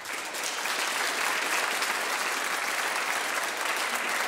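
An audience of students applauding steadily, many hands clapping at once.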